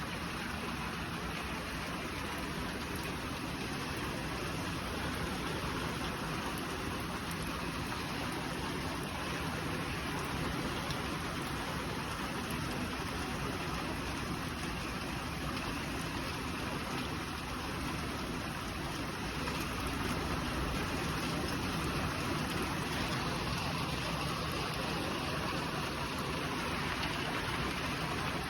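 Heavy rain falling as a dense, steady hiss with no let-up.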